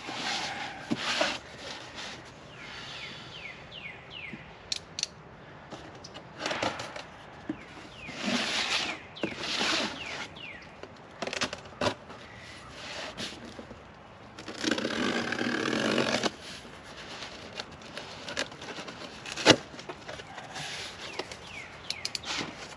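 Packaging being handled: irregular rustling, crinkling and scraping with sharp clicks, and a louder, steadier rustle lasting about a second and a half past the middle.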